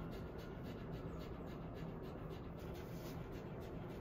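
Faint scratchy rustling, several soft strokes a second, over a steady low room hum: gauze and gloved hands rubbing at a dog's rear end.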